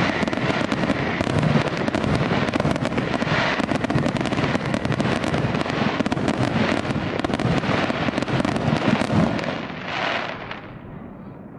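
Fireworks display: many shell bursts overlapping in a dense, unbroken barrage. It thins out after about nine seconds, with one last swell of bursts before fading away near the end.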